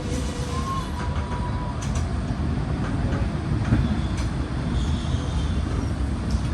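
Vintage electric tram running along the track: a steady low rumble with occasional clicks, and faint brief wheel squeals.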